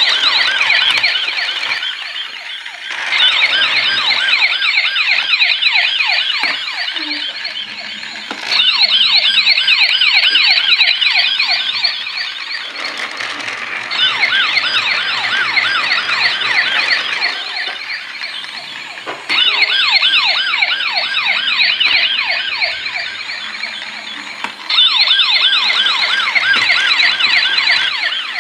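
Battery-powered toy police car's electronic siren: a fast, warbling wail that plays in stretches of about five seconds. Each stretch starts loud and fades before the next one starts.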